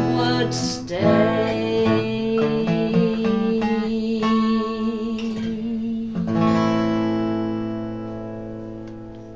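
Acoustic guitar playing the closing bars of a song: a run of picked notes, then a final strummed chord a little over six seconds in that rings on and slowly fades away.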